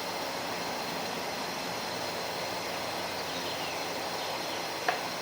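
Steady outdoor background noise, with one short sharp click near the end.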